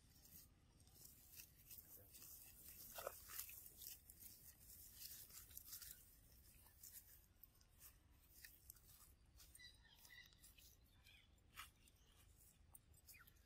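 Faint, scattered rustling and crackling of dry leaves and grass as macaques scuffle and roll on the leaf-littered ground, with a few faint short chirps near the end.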